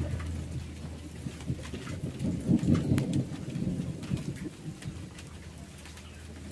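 Rain falling during a thunderstorm, with a low rumble of thunder that swells about two to three seconds in and then fades, and scattered sharp ticks of drops.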